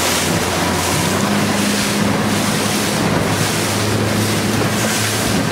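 Motorboat engine running with a steady low hum, under heavy wind noise on the microphone and the rush of choppy sea.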